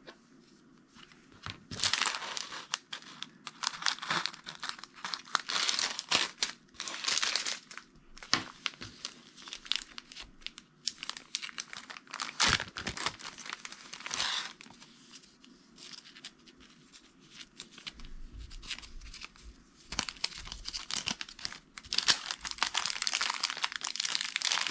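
Small plastic bags of diamond-painting drills crinkling and rustling as they are handled, cut apart with scissors and slipped into a clear zip-lock bag, with sharp clicks and snaps among the rustling. The rustling comes in bursts with quieter pauses.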